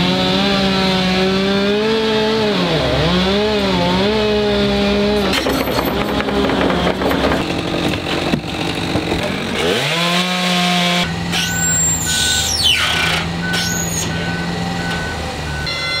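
Gas chainsaw running at high revs, dipping twice as it bogs down in the cut and then stopping. After a pause it revs up again and holds steady while a high, evenly spaced beeping repeats.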